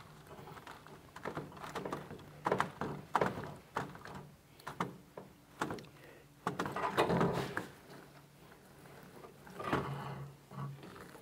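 A brush working in a paint tray of fiberglass laminating resin: irregular scrapes, dabs and light knocks against the tray.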